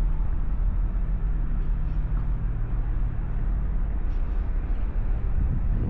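Steady low mechanical hum at a constant pitch, like an engine running, under a general outdoor rumble.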